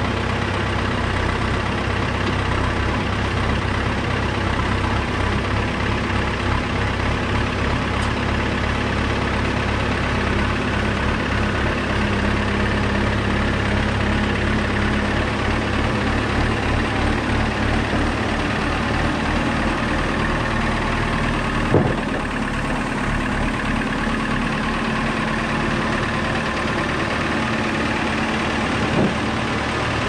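JCB 508C telehandler's diesel engine running steadily as the machine drives slowly and turns. Two short sharp knocks come through, one about two-thirds of the way through and one near the end.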